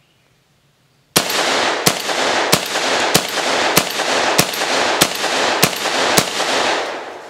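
Remington VersaMax Tactical 12-gauge gas-operated semi-automatic shotgun emptying its magazine: nine shots in quick succession, about two every three seconds, with the reports echoing and ringing on between them and dying away after the last. The loads are light Remington STS target loads, 1 1/8 ounce at about 1,200 feet per second.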